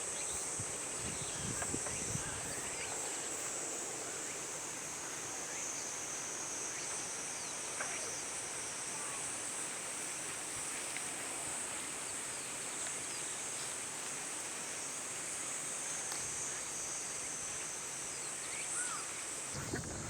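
Steady high-pitched insect chorus, with a few faint short bird calls over it; the insect sound cuts off suddenly near the end.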